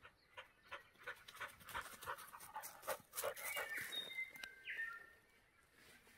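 Pig-hunting dog panting close by in a string of quick breaths, with a few short whistled bird notes about four seconds in.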